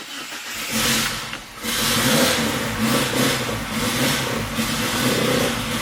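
Mitsubishi Eclipse GSX's turbocharged 4G63 four-cylinder being cranked on the starter and catching after about a second and a half, then running steadily. The car has been starting only intermittently.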